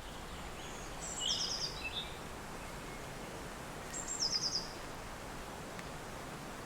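Steady wind blowing, with a small songbird singing two short phrases, about a second in and about four seconds in, each a high note followed by a quick run of notes.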